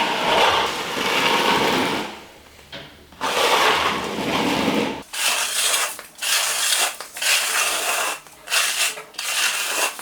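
Repeated scraping and rubbing on timber in long strokes, changing about halfway through to shorter, quicker strokes.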